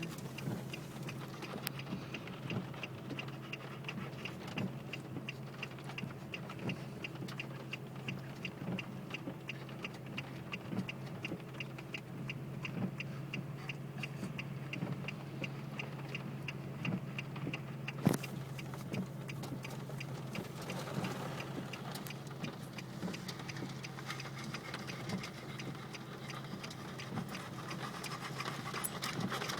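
Steady hum of a car's engine heard from inside the cabin, with a rapid, regular ticking that stops about eighteen seconds in with one sharp click.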